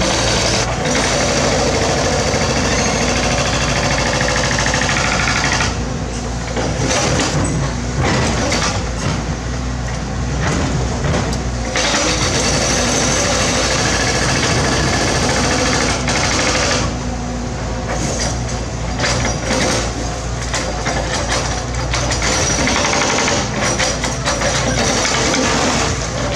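Mini excavator's diesel engine running steadily under load, with hydraulics working and irregular clattering and scraping of rock against the steel bucket.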